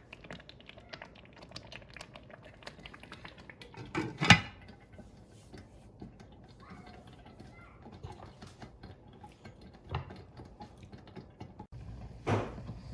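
Thick shiro stew simmering in a pot, its surface bubbling with many small irregular pops and spatters, plus three louder knocks, the loudest about 4 seconds in.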